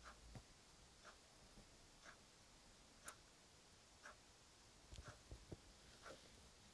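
Near silence in a small room, with a faint, even tick about once a second and a few soft low thumps about five seconds in.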